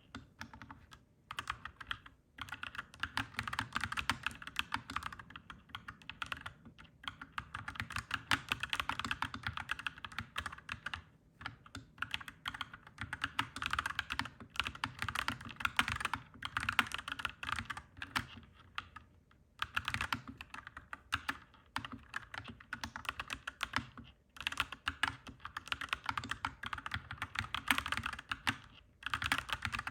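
Clacky mechanical keyboard being typed on in fast, continuous runs of keystrokes, broken by brief pauses every few seconds.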